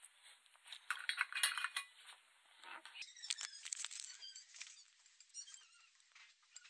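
Light clicks and clinks against a plate as flowers and herbs are set down on it, a cluster of them about a second in.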